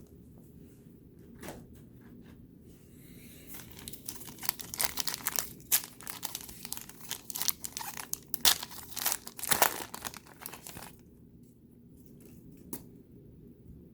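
A trading card pack's wrapper being torn open and crinkled, a dense run of crackling for about eight seconds starting around three seconds in, followed by a single click near the end.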